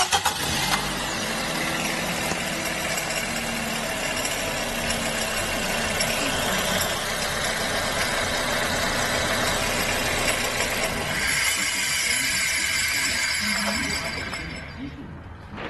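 Nissan Tiida's four-cylinder engine running, with a steady rasping noise from the alternator's one-way clutch pulley, whose bearing is worn. About eleven seconds in the sound turns brighter and hissier, and it dies away near the end.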